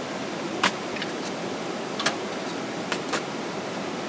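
Camping gear handled and set down on a wooden table: a handful of short sharp clicks and knocks over a steady outdoor hiss.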